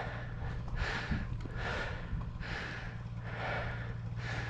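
A person breathing hard in a steady rhythm, about one heavy breath a second, over a steady low rumble while riding a dog sled.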